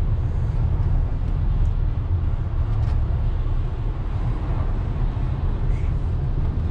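Steady road noise inside a moving car's cabin: a low rumble of engine and tyres with a hiss of tyres on wet pavement.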